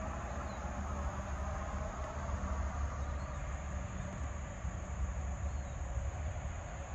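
Outdoor ambience: a steady low rumble with a continuous high insect drone over it, and three faint short chirps.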